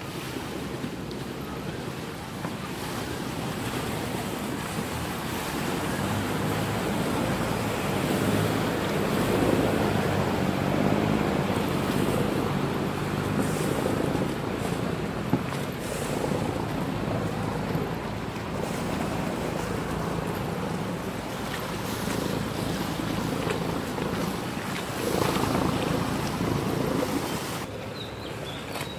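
Saen Saep canal passenger boat's diesel engine running with a low drone as the boat moves along the canal, over churning water. The engine grows louder through the middle and swells again near the end.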